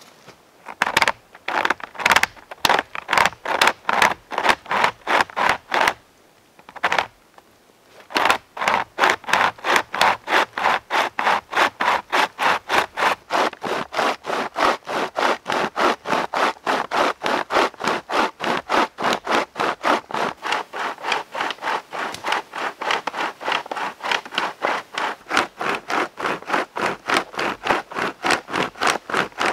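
Savotta pocket chain saw pulled back and forth by hand through a fallen conifer limb: rasping cutting strokes, about three a second, with a short pause about six seconds in before the sawing resumes.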